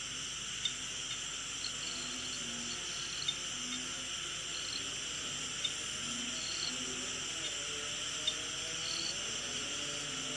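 Faint steady outdoor ambience: an even hiss with soft short chirps every second or so and a few small ticks.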